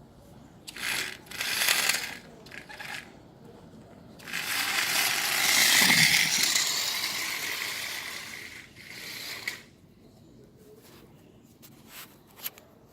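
Homemade RC drift car scraping and sliding across a hard floor: two short bursts in the first few seconds, then one longer slide of about five seconds that swells and fades, with a few light clicks near the end.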